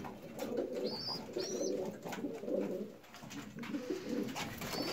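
Domestic pigeons cooing in a loft, low wavering coos repeating, with a few short high chirps about a second in and again near the end.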